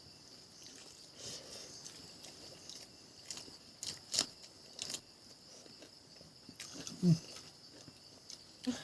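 A person eating on camera: chewing, with a few sharp crunchy clicks of biting in the middle. A steady high-pitched hum runs underneath. A brief low vocal sound about seven seconds in is the loudest moment.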